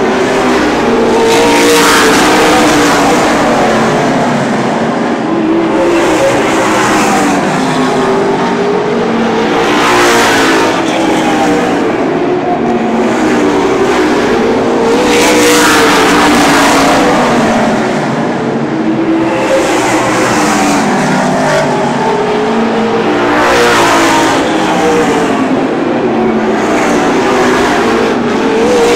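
A pack of super late model race cars running laps, their V8 engines rising and falling in pitch as they accelerate and lift through the turns. The sound swells each time cars pass close by.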